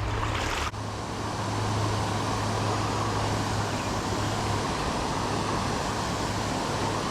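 Steady rushing of creek water, an even noise with a low hum under it, briefly dipping about a second in.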